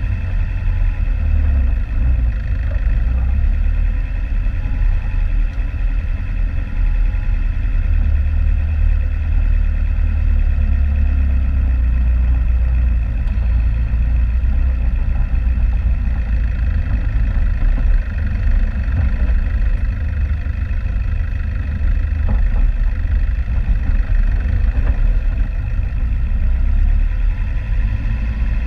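Off-road vehicle's engine running steadily at low revs, a heavy low drone.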